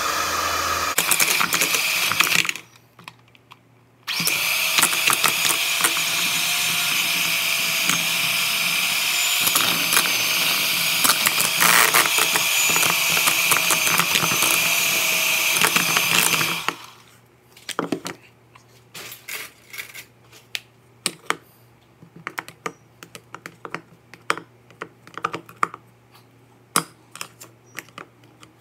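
Electric hand mixer running with its beaters in a bowl of butter: a short run of a couple of seconds, a brief stop, then a longer steady run of about twelve seconds that stops suddenly. Scattered light clicks and taps follow.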